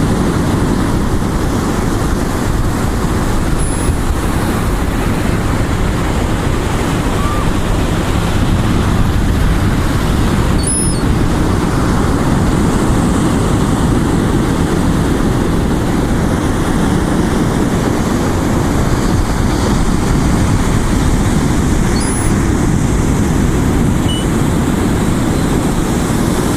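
Steady low rumble of wind on the microphone and ocean surf, with a few faint, brief high squeaks.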